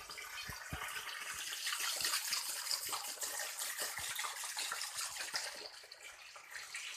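Water splashing and trickling, with many small clicks and taps running through it.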